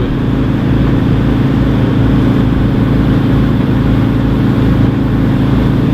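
New Holland TX63 combine harvester's diesel engine running steadily under working load, a constant even hum with a low rumble.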